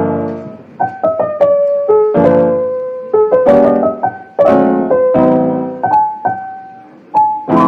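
Background piano music: a melody of single notes and chords, each struck note fading away before the next.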